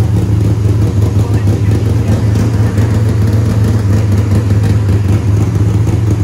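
Freshly built, cammed, even-fire 6.8-litre Ford four-valve V10 running on its first start-up. It runs loud and even at a steady idle, with no revving.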